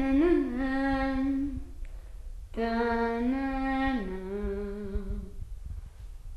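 A child's voice singing two long held notes about a second apart, the second stepping down in pitch partway through.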